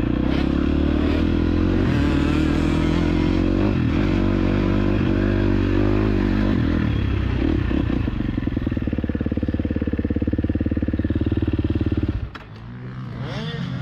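KTM SX-F 250 motocross bike's single-cylinder four-stroke engine running loud and steady under throttle. It drops off sharply about twelve seconds in, then picks up again, rising in pitch.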